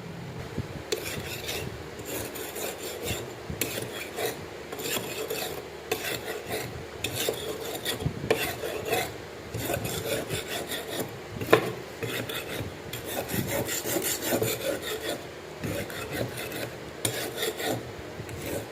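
Repeated rasping strokes of a knife blade worked by hand against an abrasive, about one or two strokes a second, with one sharp tap about eleven seconds in.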